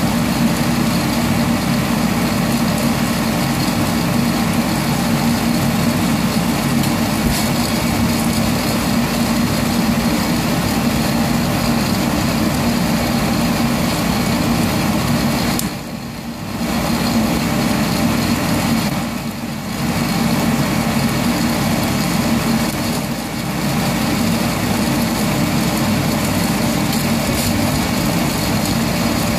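Sonofresco coffee roaster running: a steady whir of its hot-air blower with a low hum while the beans roast. The noise dips briefly three times in the second half.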